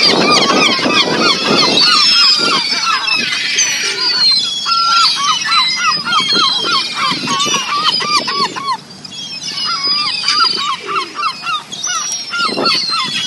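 A flock of birds calling as they are fed, many calls overlapping. A run of short repeated calls comes several a second from about four seconds in to about nine seconds, over higher cries that go on throughout.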